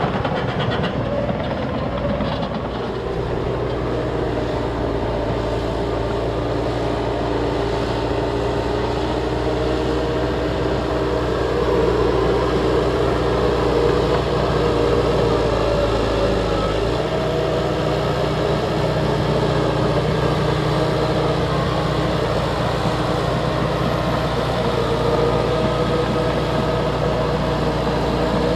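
Liebherr crawler bulldozer's diesel engine running steadily while pushing earth, a continuous deep engine drone. The engine note shifts about two-thirds of the way through.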